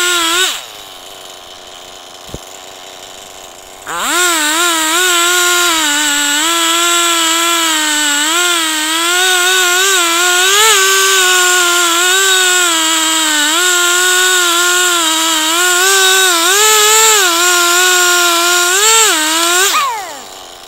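Two-stroke chainsaw on a chainsaw mill. It is briefly at high revs, drops back to idle for about three seconds, then is revved to full throttle and held. The pitch wavers under load as the bar cuts through the log, and it falls away again near the end.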